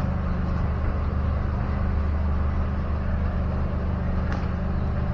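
Steady low drone of a car heard from inside the cabin while driving: engine and road noise with no sudden changes.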